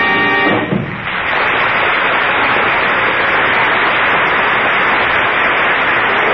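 An orchestra's music ends with a held final chord just under a second in. A studio audience then applauds steadily.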